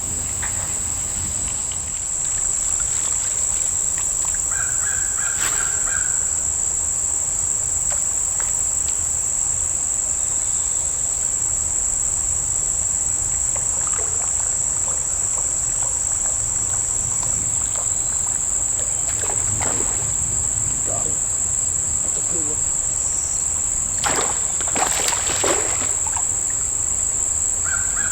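A steady, high-pitched insect drone, with a few crow caws about three-quarters of the way through.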